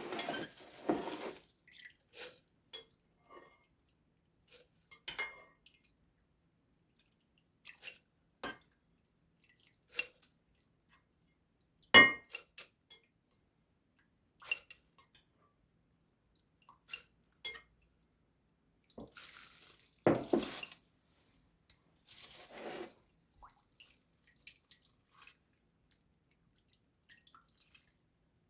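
Dishes and containers being handled in a kitchen: scattered clinks and knocks with quiet gaps between them. One sharp knock comes about twelve seconds in, and short rustling, scraping patches come around twenty seconds in.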